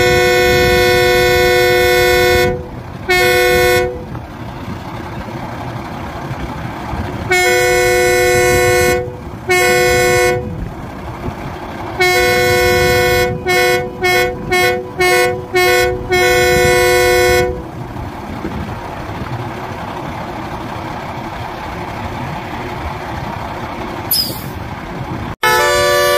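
Dennis Sabre fire engine's horn sounding two pitches together, blown in a pattern of long and short blasts, then a quick run of about six short toots and a final long blast. The truck's engine idles steadily underneath and is left on its own for the last several seconds.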